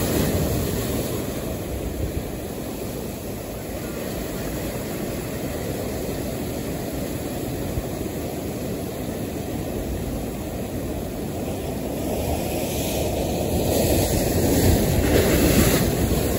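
Ocean surf washing in over the rocks, a steady low rush of breaking waves and foam that swells louder near the end.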